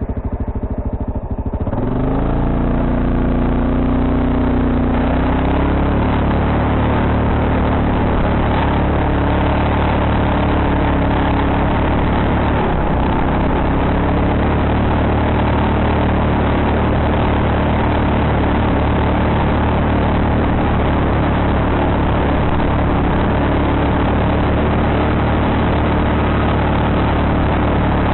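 ATV engine ticking over, then revving up about two seconds in and running steadily under throttle as the quad moves off.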